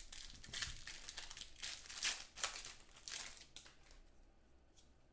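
Foil wrapper of a football trading-card pack crinkling and tearing as it is ripped open by hand, in a run of rustling bursts over the first few seconds that then fade to lighter handling.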